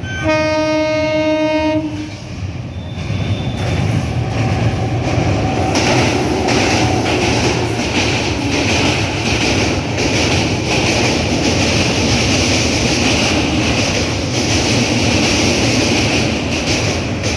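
An electric locomotive's horn sounds one blast of about two seconds. Then an LHB passenger train passes close at speed, with a steady loud rumble and rhythmic wheel clatter over the rail joints.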